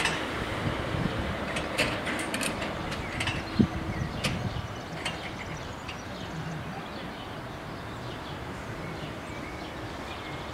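Level-crossing barrier arms of an FS 64 crossing lowering, with scattered mechanical clicks and knocks in the first few seconds, then a steady low background rumble while the crossing stands closed.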